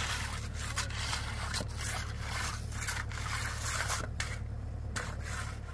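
Irregular scraping strokes, like a tool dragged over a rough surface such as concrete or gravel, over a steady low engine hum.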